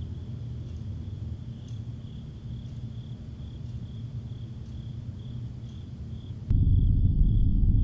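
Insects chirping in a steady pulsing rhythm over a low rumble. About six and a half seconds in, the rumble suddenly jumps much louder and the sound turns duller, while the chirping carries on.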